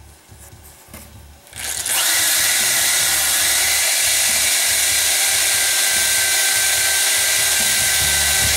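Power tool's spinning abrasive wheel grinding down the edge of a stitched leather sheath, starting suddenly under two seconds in and running steadily at a high whine.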